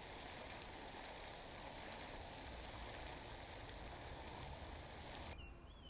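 Garden fountain's single vertical jet splashing back into its stone basin: a steady hiss of falling water that cuts off suddenly near the end, followed by a brief chirp.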